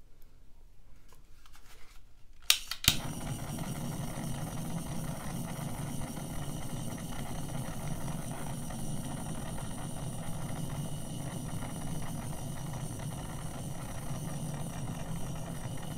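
A handheld butane torch clicks alight about two and a half seconds in, then its jet flame hisses steadily as it shrinks heat-shrink tubing over a soldered battery wire joint. It shuts off suddenly with a click at the very end.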